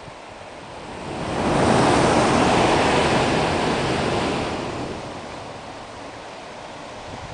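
Ocean surge breaking against the jagged limestone shore at the blowholes: a rush of water noise that builds about a second in, stays loud for about three seconds, then dies away.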